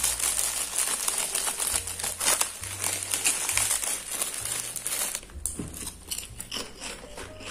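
Clear plastic bag crinkling and rustling in hands close to a clip-on lavalier microphone, a dense crackle for about five seconds, then thinning to sparse crinkles.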